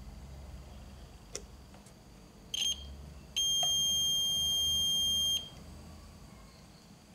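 Digital multimeter's continuity beeper sounding as its probe touches solder points on a TV circuit board: a light tick, then a short high beep and a steady beep of about two seconds. The beep signals a near-zero-resistance, connected path between the probes.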